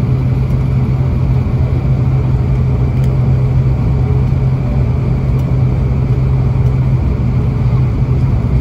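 An ATR 72-600's turboprop engine and propeller heard from inside the cabin, running at a steady speed. It makes a constant low propeller drone over engine and airflow noise.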